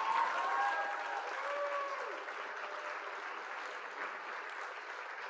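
Crowd applauding and cheering. It starts all at once, with a few voices whooping over the clapping in the first couple of seconds, then settles into steady clapping that slowly eases off.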